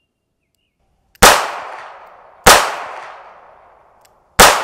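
Taurus 856 .38 Special revolver fired three times in double action, the shots about 1.3 and 1.9 seconds apart, each trailing off in a long echo.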